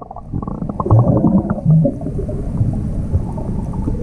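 Muffled low rumble and bubbling of water, heard with the GoPro submerged, with many small clicks.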